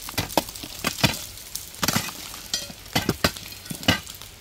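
A run of sharp, irregular knocks and clinks of hard rock being struck and broken up, about two or three hits a second.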